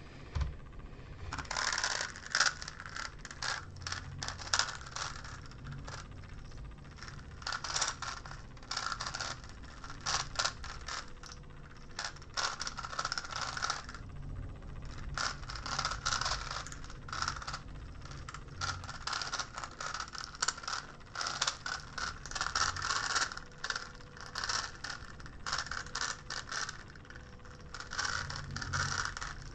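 GAN Megaminx being turned fast during a speedsolve: rapid plastic clicking and clacking of its faces, in quick runs with short pauses, the longest a little before halfway.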